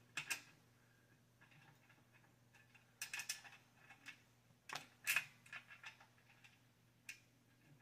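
A steel bolt clicking and scraping against the bench's square steel upright tube as it is worked into a bolt hole that won't line up. It comes in a few short clusters of metallic clicks, the loudest about five seconds in.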